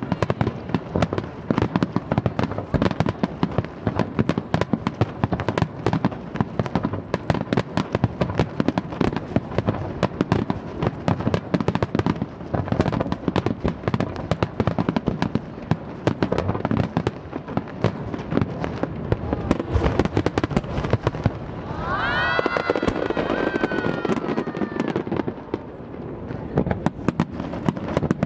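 Fireworks display in a dense barrage: a rapid, continuous crackle of many shells bursting and popping, with no let-up.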